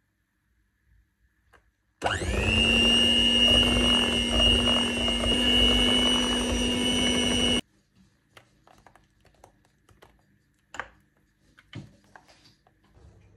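Electric hand mixer beating banana bread batter in a stainless steel bowl. It spins up about two seconds in, runs at a steady whir for about five and a half seconds, then cuts off suddenly. A few faint light taps follow.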